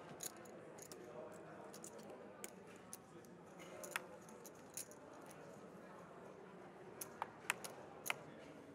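Poker chips clicking and clinking at a card table: scattered sharp clicks, with a few louder ones near the end, over a faint murmur of voices.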